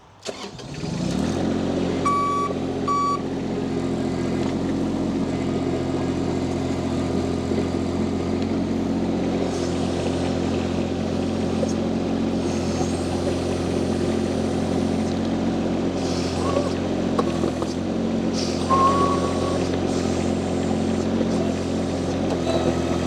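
Mini skid steer loader's engine starting, then running at a steady speed. Two short high beeps sound about two seconds in.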